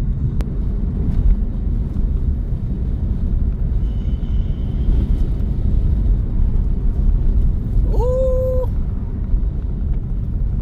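Strong dust-storm wind buffeting the microphone through an open car window: a loud, steady low rumble throughout.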